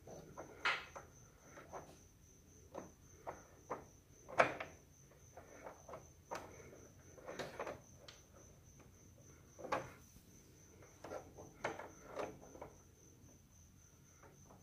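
A string of irregular clicks and knocks, the loudest about four and a half seconds in, over a steady, high-pitched, evenly pulsing chirp.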